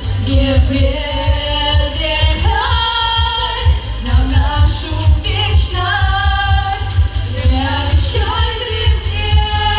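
Two women singing a pop song live into microphones over a loud accompaniment with a steady heavy bass beat.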